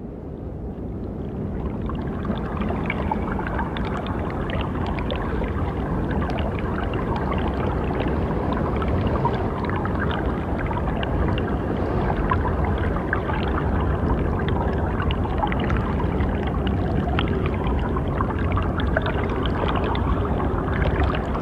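Steady running water, fading in over the first couple of seconds.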